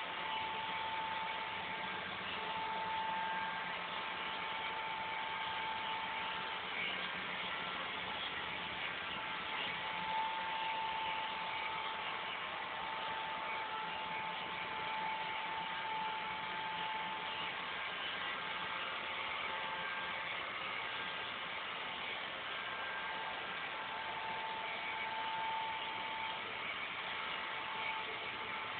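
Robot vacuum cleaner running: a steady motor whir, with a thin whine that fades out and returns several times.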